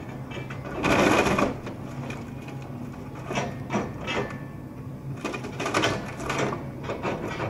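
Hyundai 180LC-7 excavator's diesel engine running steadily while its demolition grapple crunches through timber house debris: a loud crash of breaking wood about a second in, then a series of sharp cracks and snaps as boards splinter.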